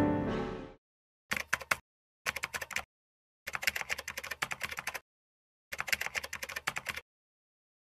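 Computer keyboard typing in four short bursts of rapid key clicks separated by silence, after piano music fades out in the first second.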